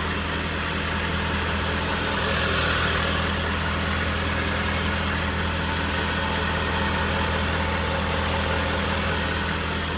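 Ford 6.7-litre Power Stroke turbodiesel V8 in a 2012 F450 idling steadily.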